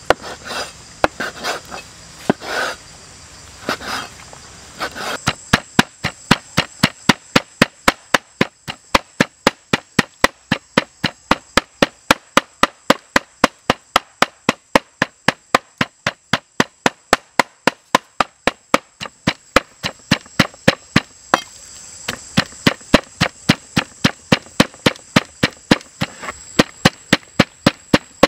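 Heavy kitchen knife chopping raw pork on a wooden cutting board to mince it. A few seconds of slower, uneven cuts give way to a steady, rapid rhythm of sharp chops, about three or four a second.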